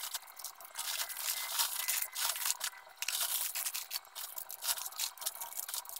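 Plastic snack wrappers crinkling and rustling in irregular bursts as packets are handled and set down.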